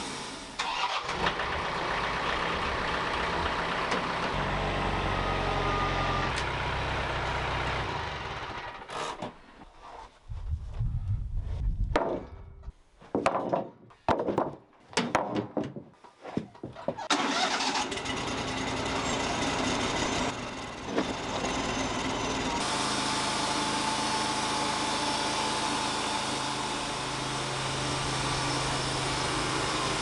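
Wood-Mizer portable band sawmill running, a steady engine-driven noise. About nine seconds in it drops away to a few seconds of short choppy bursts, then the steady running returns.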